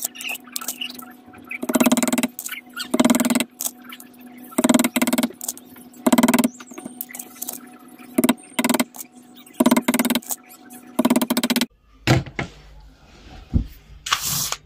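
Nails being pulled from a boot last with pincers and dropped into a bowl of nails: about a dozen short metallic clinks and rattles, roughly one a second, at irregular intervals.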